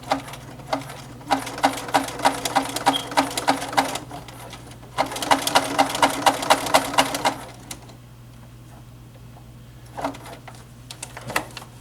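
Sewing machine stitching a backpack strap down in two short runs of rapid, even needle strokes, about five a second, with a steady motor hum under them. A few separate clicks follow near the end.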